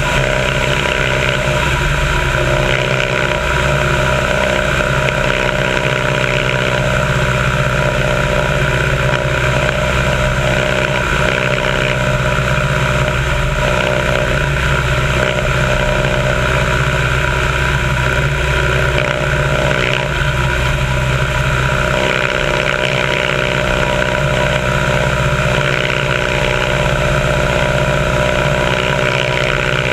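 A biplane's piston engine running steadily in cruising flight, a loud even drone mixed with the rush of airflow over the wing.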